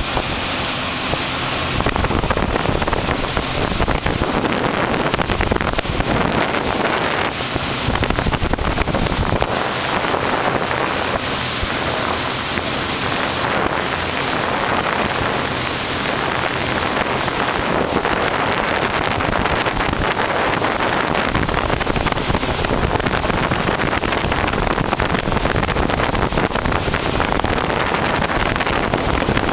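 Wind buffeting the microphone over the steady running noise of a small motorboat under way on open water.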